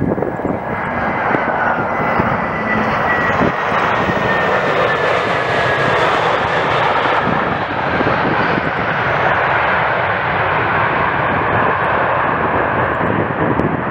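Aircraft engine running steadily: a loud, even rush with a faint whine that slides slowly down in pitch over the first few seconds.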